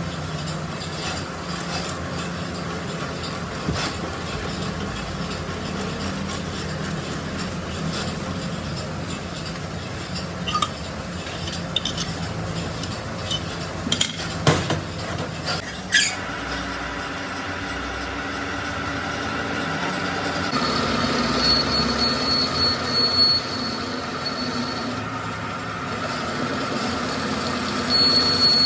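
Metalworking shop machinery running steadily, with a few sharp metal knocks about halfway through, then a steady high whine from about two-thirds of the way in.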